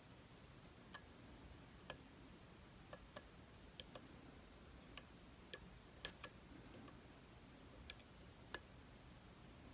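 Faint, irregular metallic clicks of lock picks working the pins of a DOM RS8 high-security profile cylinder, about a dozen sharp ticks spread unevenly over the quiet.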